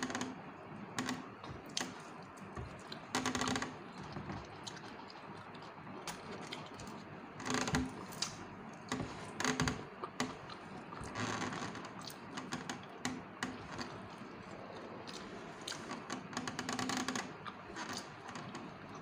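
Close-up eating sounds: grilled fish pulled apart by hand and chewed, heard as clusters of crackly clicks every few seconds with quieter stretches between.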